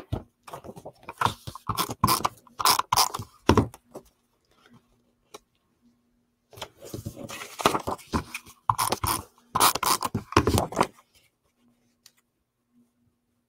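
Sheets of patterned paper and cardstock being handled and slid across a tabletop, in two spells of scraping, the second starting about halfway through. A faint steady hum runs underneath.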